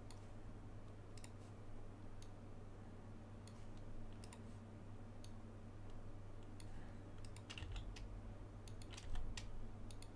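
Faint computer mouse and keyboard clicks, scattered at first and coming in a quicker cluster about seven to nine seconds in, over a steady low hum.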